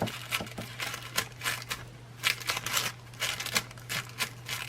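Crinkling and rustling of a sheet of gold leaf being pressed and rubbed down onto the sized surface, in short irregular strokes, over a steady low hum.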